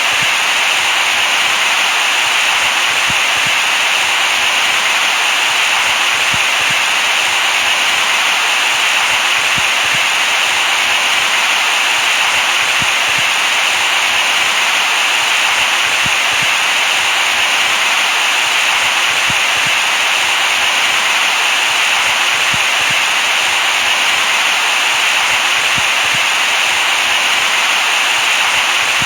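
Baby-sleep white noise: a steady, even hiss, strongest in the upper range and thin in the bass, with no change in level.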